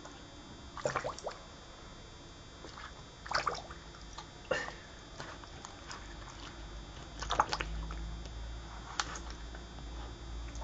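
Scottish terrier blowing bubbles in water: about five short bursts of bubbling and splashing, the loudest a little after the middle.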